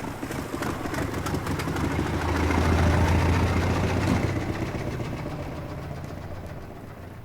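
Model T Ford's four-cylinder engine chugging, growing louder to its loudest about three seconds in and then fading away, over faint record surface hiss.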